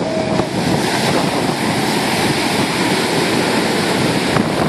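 Heavy storm surf breaking and churning against a pier's pilings, a loud steady rush of water, with wind buffeting the microphone.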